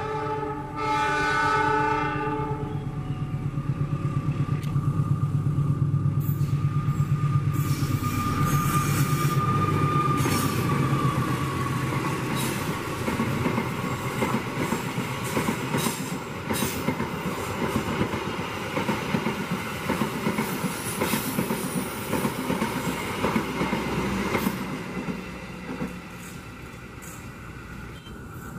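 Train horn sounding two blasts, then a passenger train passing at speed: loud rushing rumble of the carriages with rapid clicks of wheels over the rail joints, fading away near the end.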